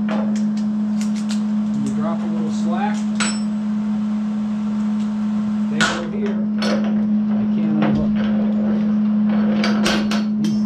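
Hand tool knocking and tapping on the steel side of a dump box, in irregular strikes with a quick run of taps near the end, over a steady hum.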